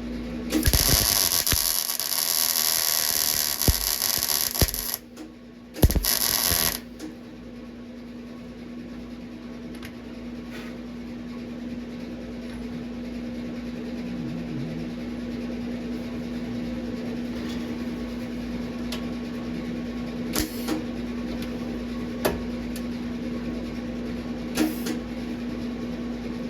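MIG welder laying plug welds on sheet-metal body panels: a crackling burst of about four seconds, a short one about a second later, then a steady hum with a few faint clicks.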